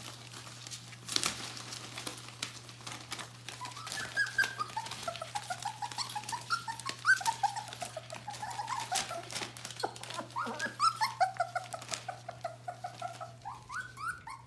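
Nearly four-week-old Border Collie puppies whining and squeaking in strings of short high cries, from about four seconds in, over scratches and rustles of paws on newspaper.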